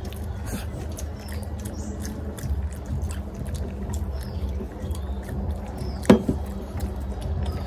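Close-up eating sounds: chewing with small wet mouth clicks and smacks, and fingers mixing rice on a plate. One sharper, louder sound comes about six seconds in.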